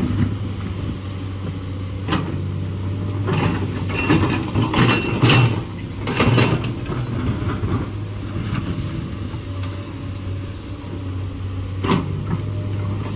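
Komatsu PC210LC hydraulic excavator's diesel engine running steadily at working revs, with intermittent metallic clanks and knocks from the machine at work, the loudest in a cluster around the middle and again near the end.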